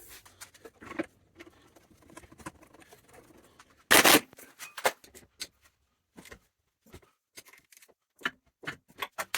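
Scattered light clicks, taps and rustles of parts and tools being handled, with one louder short rustle or scrape about four seconds in.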